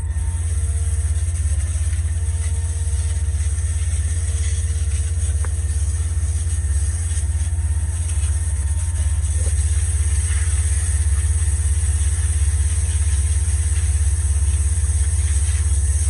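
A concrete line pump's engine running steadily with a deep rumble, while a water hose sprays into the hopper against the auger and its paddles, making a steady hiss.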